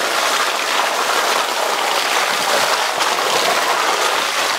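Wet, sticky mud spraying and spattering off a Jeep's spinning tire as it churns through a mud hole: a steady hiss.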